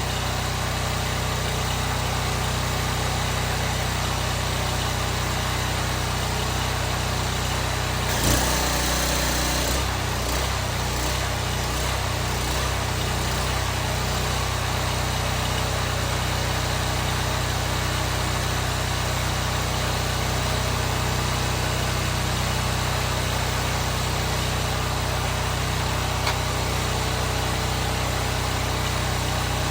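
Loncin petrol engine of a belt-driven pressure washer running steadily. About eight seconds in there is a sharp click and a brief hiss, and the engine note wavers for a few seconds before settling.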